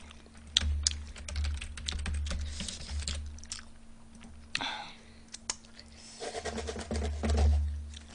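Quick, irregular small clicks close to the microphone, mixed with soft low thumps.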